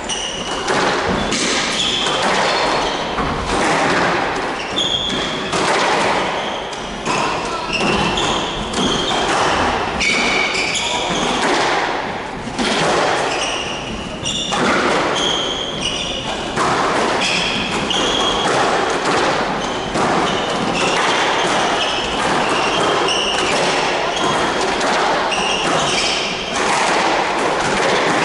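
Squash rally: the ball is struck by rackets and thuds off the court walls again and again, with short high squeaks from the players' court shoes on the wooden floor.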